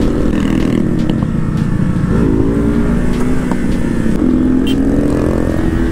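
KTM RC 200's single-cylinder engine running under way, its pitch falling and rising again several times as the rider eases off and gets back on the throttle through the bends. Wind rushes steadily on the microphone.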